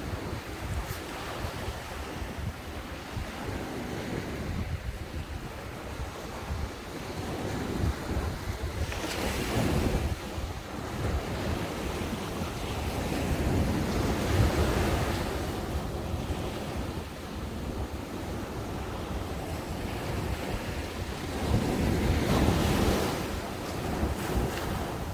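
Ocean waves breaking and washing up the beach, swelling louder about a third of the way in, in the middle and again near the end. Wind buffets the microphone, adding a low rumble.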